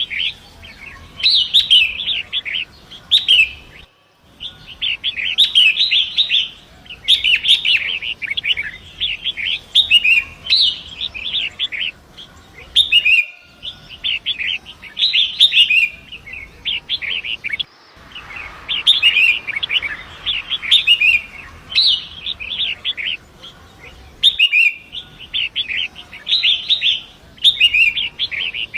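Long-tailed shrike (pentet) singing: rapid, chattering, high song phrases about a second or two long, repeated with short pauses and broken by a few abrupt brief dropouts.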